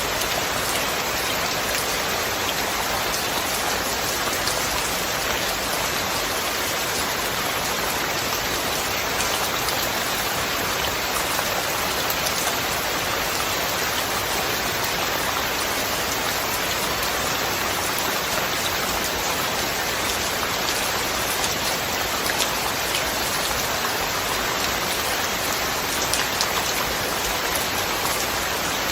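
Steady rain falling: an even hiss with faint scattered ticks of individual drops, unchanging throughout.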